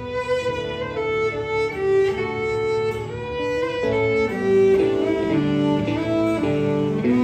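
Fiddle playing a melody of held notes over guitar accompaniment in a country song.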